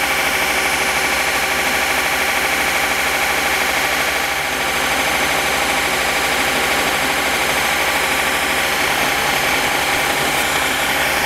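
Belt grinder running with a forged steel knife handle held against the belt over a small contact wheel, grinding the handle's profile to shape. A steady machine whine over a continuous grinding hiss.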